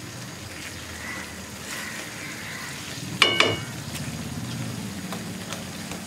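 Thick milk-and-ghee egg korma gravy sizzling in a pan while a silicone spatula stirs it, with one brief, sharp knock of the spatula against the pan about three seconds in.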